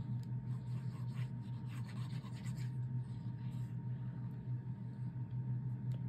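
Paper panel being glued and pressed down by hand: light rubbing and scratching of paper, mostly in the first half, over a steady low hum.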